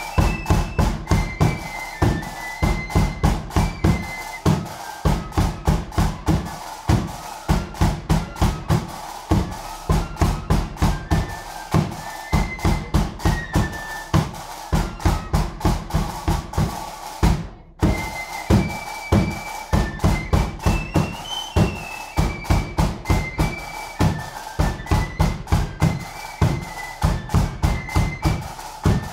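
Flute band playing indoors: a melody on flutes over a heavy, steady bass drum beat and drums. The sound drops out for a moment about two-thirds of the way through, then the tune carries on.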